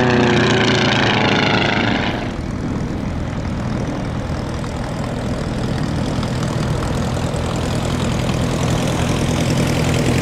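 Small propeller air racer's engine and propeller going past on a low pass, the pitch sliding down as it goes by. About two seconds in it changes abruptly to the same kind of engine running steadily at low power as the racer taxis.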